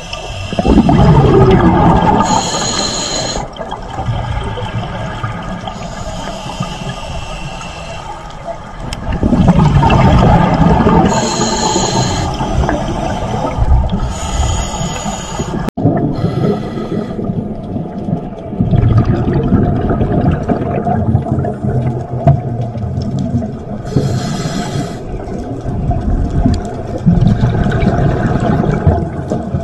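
Scuba diver breathing underwater through a regulator: rumbling surges of exhaled bubbles alternating with short hissing inhalations every few seconds.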